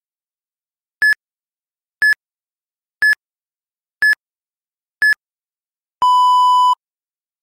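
Electronic interval-timer countdown: five short high beeps one second apart, then one longer, lower beep. The cue marks the switch between a one-minute run and a one-minute recovery in an 8 × 1-minute interval session.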